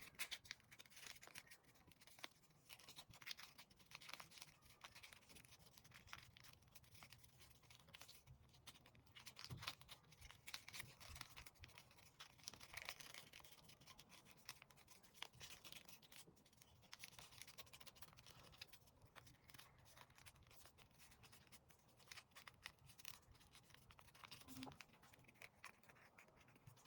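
Faint handling of folded paper: soft rustles, scratches and small irregular clicks as paper is creased and moved.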